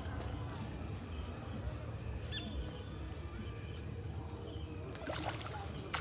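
A hooked catla splashing and thrashing at the water's surface near the end while being played on a bent rod, over a steady low rumble of wind on the microphone.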